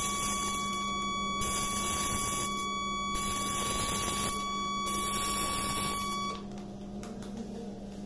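Eclipse 400-watt electrosurgical cautery machine in fulguration (contact coagulation) mode: its steady high activation beep sounds while the foot switch is held. Over it come four bursts of loud hissing crackle as the electrode sparks on the tissue. Both stop about six seconds in.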